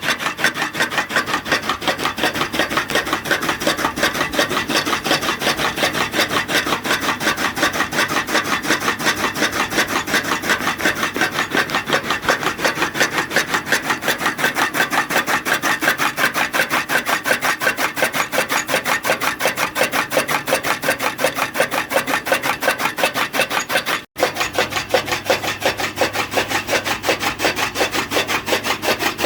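Rapid, even rasping cutting strokes, several a second, as fodder is chopped, broken by a brief gap near the end.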